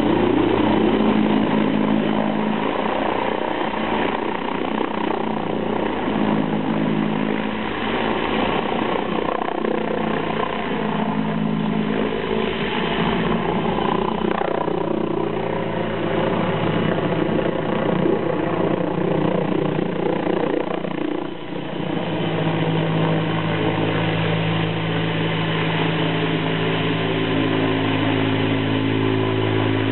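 T129 ATAK attack helicopter in flight overhead: a steady drone from its rotors and twin turboshaft engines. Its low hum shifts in pitch a few times as it flies past and manoeuvres.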